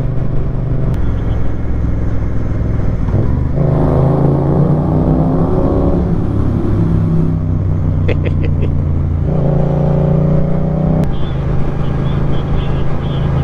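Motorcycle engine running at road speed, its pitch stepping up and down several times as the throttle and gears change.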